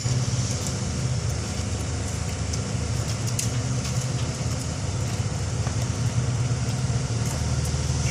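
Heavy diesel engine idling steadily with a low, even drone, from the machinery, crane or truck, standing by for a container lift.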